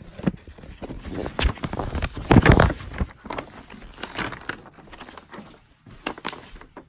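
A folded paper poster being unfolded and smoothed flat by hand: irregular crinkling and rustling of paper, loudest about two and a half seconds in.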